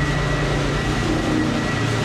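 Floor sanding machine running steadily under load: an even rushing noise with a thin high whine and a low hum.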